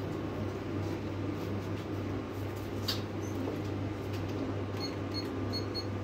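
Steady low hum of the shop's room tone, with a sharp click about three seconds in, then four quick high beeps near the end from the keypad of a digital weighing scale as melons are weighed.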